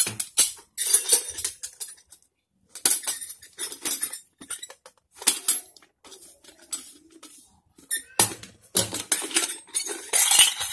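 Brass sev-maker parts clinking and scraping against each other as the perforated disc is fitted into the cylinder and the crank head is handled: a run of irregular metallic clicks and rattles with short pauses between.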